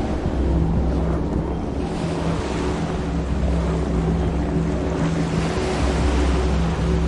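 Forest rain ambience: a steady hiss of heavy rain that eases for a moment about a second in and then swells again, over a low, steady hum.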